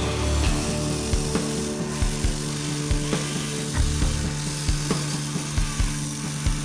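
Huina 1580 RC excavator's electric motors and gearboxes running with a steady whine, broken by irregular ratcheting clicks and knocks from its geared drives as it works.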